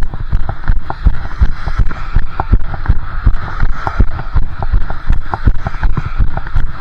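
A runner's footfalls thudding through a chest-mounted camera at a steady stride of about three steps a second, over a steady hiss.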